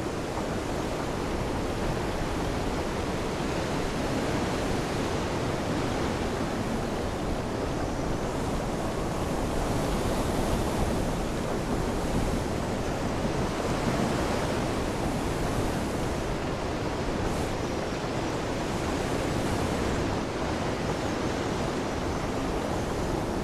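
Ocean waves and wind: a steady rushing wash of sea noise that swells a little about halfway through.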